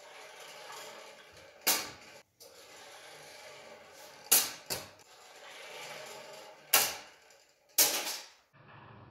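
A lightweight rubber-band-powered model airplane made of styrofoam plates knocking sharply into surfaces during test flights in a small room, five times, over a faint steady hiss.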